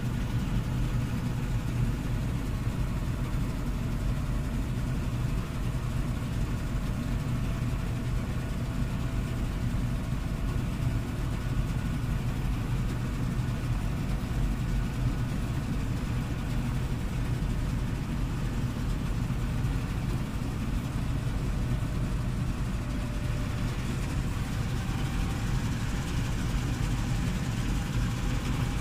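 Combine harvester running while harvesting, heard from inside the cab as a steady low drone with a faint whine above it.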